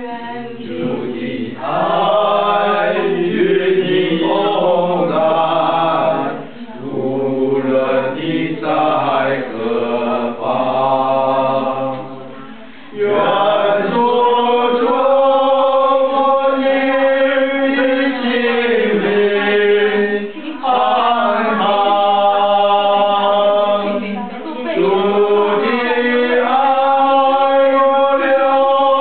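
Singing voices carrying a slow melody in long held notes. A lower part sounds beneath the melody for roughly the first half, then drops out about 13 seconds in.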